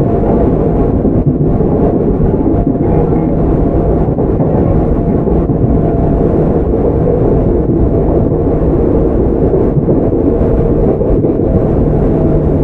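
Tokyu 9000 series electric train running at a steady speed: a steady rumble of wheels on rails, with faint steady tones under it.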